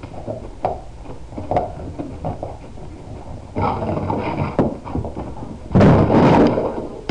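A dog's paws thump and scrabble on carpet as it runs in its sleep, in irregular knocks that turn into denser scraping about three and a half seconds in. About six seconds in comes the loudest sound, a clatter as the dog scrambles into a wooden board against the wall.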